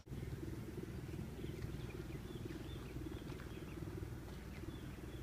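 Outdoor ambience: a steady low rumble with a few faint, short high chirps, like small birds, in the middle.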